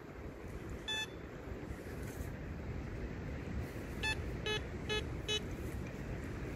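Teknetics Liberator metal detector giving short target beeps as its coil passes over a freshly dug hole and soil pile: the detector is signalling the buried find. One beep sounds about a second in, then four quick beeps about four seconds in, over a steady low background noise.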